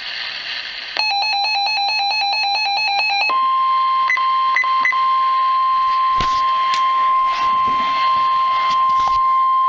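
An electronic alarm beeps in rapid pulses for about two seconds. Then the steady 1050 Hz NOAA Weather Radio warning alarm tone sounds to the end, announcing a severe thunderstorm warning, with a few short higher beeps and clicks over it.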